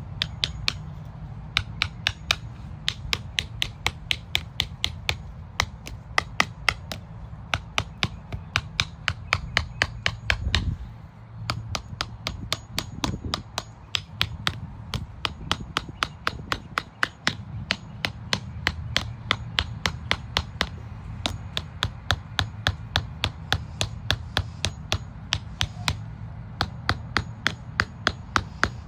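A hammer knocking a plastic sprinkler-head guard down into the ground: long runs of sharp, even taps, about three a second, broken by a couple of short pauses.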